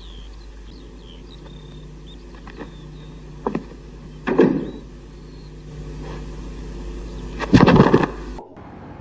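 Film soundtrack of quiet room tone with a low hum and a few faint knocks, broken about seven and a half seconds in by a short loud burst: a fighter's sharp shout as he throws a punch.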